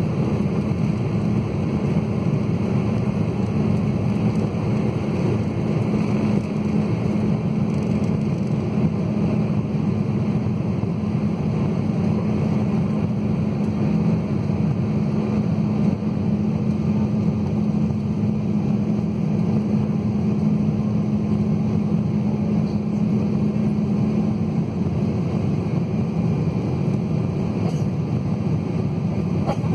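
Cabin noise of an Embraer 190 jet airliner on takeoff and initial climb, heard from a window seat over the wing: its two General Electric CF34-10E turbofans at takeoff thrust give a steady roar with a strong low hum, which eases a little near the end.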